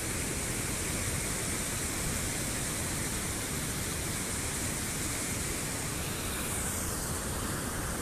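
Waterfall and rapids: whitewater rushing over rocks in a steady, even rush of water noise.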